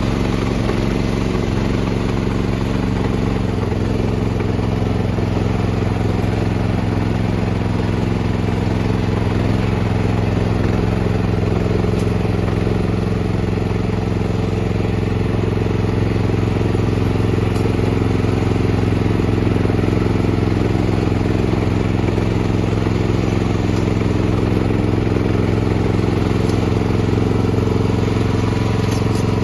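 Tracked walk-behind snowblower's small petrol engine running steadily as the machine is driven along.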